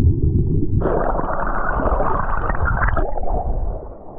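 Muffled rush and gurgle of shallow surf heard through a camera held underwater. About a second in it gets louder and brighter as the water churns, then eases off near the end.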